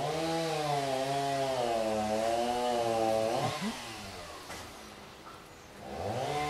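Domestic cat growling: a long, low, wavering warning growl that breaks off about three seconds in, then starts again near the end.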